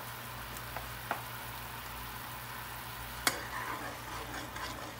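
Tomato-and-oil sauce simmering in a frying pan, a steady sizzling hiss with a few faint pops. About three seconds in, a metal spoon knocks the pan once and stirs through the sauce with a scraping sound.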